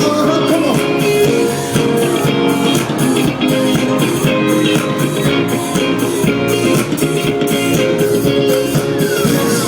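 Pop-rock music: guitar over a steady drum-kit beat.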